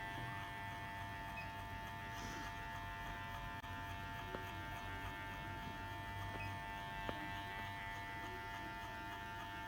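Wimark electric hair clipper running with a steady motor hum, with two faint ticks about four and seven seconds in.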